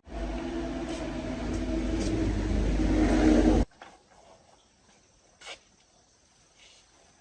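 An engine running steadily with a low rumble, growing louder for about three and a half seconds, then cut off abruptly. A few faint light clicks and knocks follow.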